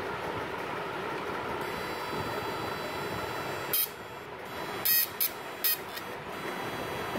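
Homemade high-voltage fish-shocking inverter running into a bowl of water through bare output wires, with a steady buzz and high whine. About four short, sharp crackling bursts come between about 4 and 6 seconds in, as the output discharges into the water.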